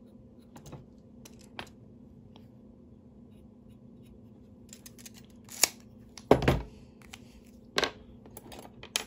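Handling noises on a wooden workbench as a tape measure, marker, steel rod and locking pliers are used and moved: scattered light clicks and taps, then a few louder knocks and a heavier thump about six seconds in, over a low steady hum.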